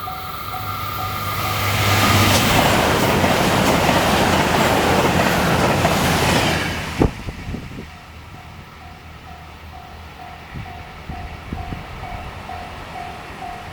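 A JR Kobe Line train passes close by at speed, a loud rush of wheel and rail noise with clickety-clack, which cuts off suddenly about seven seconds in. A level-crossing warning bell dings steadily, two or three times a second, heard clearly once the train noise is gone.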